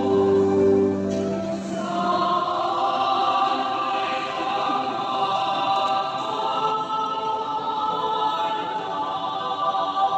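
Church choir singing an offertory hymn for the preparation of the gifts at Mass. A low held chord ends a phrase, and fuller singing with several voice parts starts about a second and a half in.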